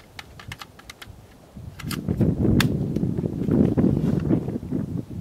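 AR-15 with a 7.62x39 upper being handled as a magazine goes in: a run of light metallic clicks and snaps over the first two seconds. After that comes a louder, steady low rushing noise.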